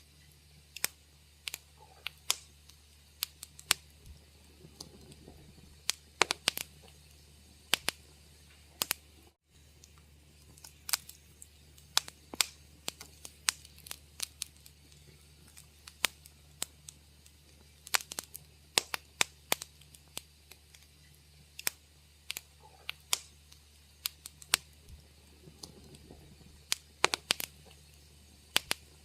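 Wood fire in a fireplace crackling, with irregular sharp pops and snaps over a faint steady low rumble. The sound cuts out for a split second about nine seconds in.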